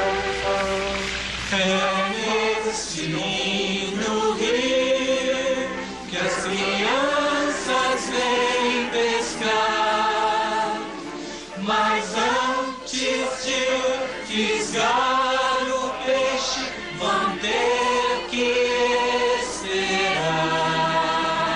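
Music with a choir singing, the voices sliding up and down in pitch.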